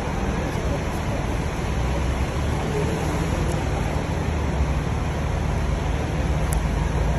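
Steady low rumble and hiss of buses idling in a bus interchange, with no single vehicle standing out.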